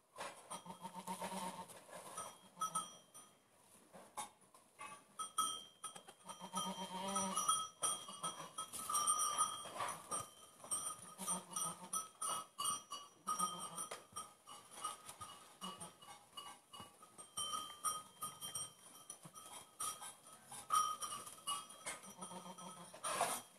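Goats bleating softly: short, low calls repeated every few seconds, with straw rustling and crackling as the newborn kids shift about.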